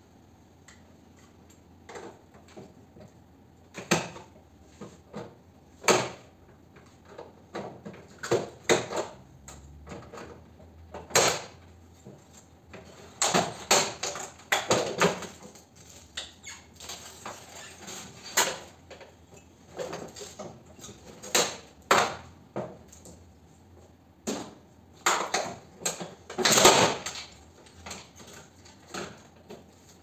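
Irregular clicks, knocks and rattles of metal and plastic as a split air conditioner's indoor unit is dismantled and its finned evaporator coil is worked loose and lifted from the housing. The knocks are loudest in a cluster near the end.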